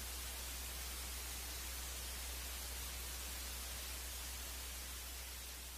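Steady static hiss with a low, constant hum underneath, beginning to fade near the end.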